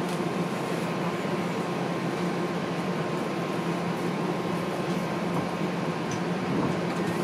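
Steady hum inside a TTC Flexity Outlook streetcar standing at a stop: the car's ventilation and electrical equipment running, with a few low steady tones.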